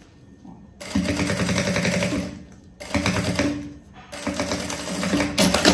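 Sewing machine stitching a seam in three runs with brief stops between them: rapid, even needle strokes over a steady hum.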